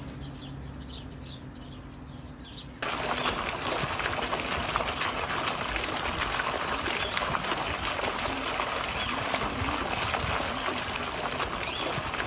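Steady rush of flowing, splashing water in a koi pond, cutting in abruptly about three seconds in. Before it, a quieter stretch with faint short chirping.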